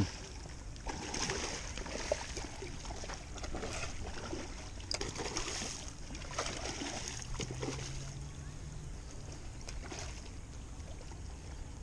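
Irregular splashing and sloshing of surface water as a school of Australian salmon busts up, feeding on the surface.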